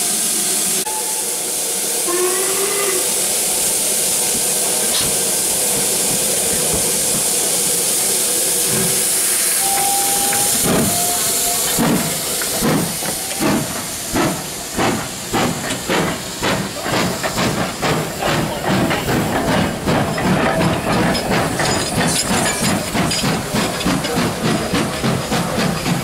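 GWR Hall class steam locomotive 4965 Rood Ashton Hall hissing steam, then starting away with exhaust beats. The beats begin slow about ten seconds in and quicken steadily to a fast, even chuff as it gathers speed.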